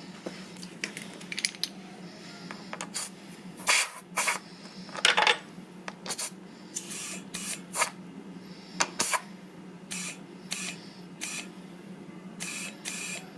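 Short, irregular bursts of compressed air let out from the freshly filled air compressor over a steady low hum.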